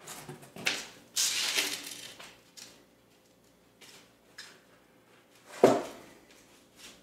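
Cardboard packaging scraping and rustling against a hardwood floor as a dog noses and plays with it, with scattered light clicks. A single sharp knock about five and a half seconds in.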